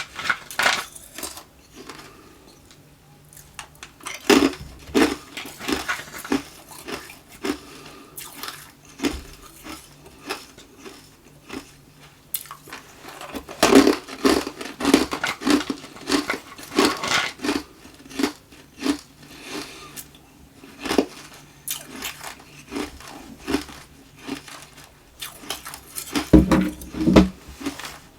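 Close-miked crunching and chewing of hard tube ice, in runs of rapid crunches with quieter pauses between bites.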